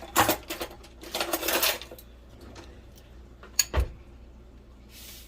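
Flour poured into a bowl in two rustling pours, then two sharp knocks of kitchenware against the bowl or counter.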